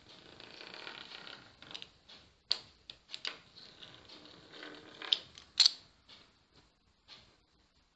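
Pastry cutting wheel rolling through rolled-out dough on a granite countertop: a soft rolling rasp over the first second or so, then scattered clicks and taps as the wheel is run and lifted, the sharpest about five and a half seconds in.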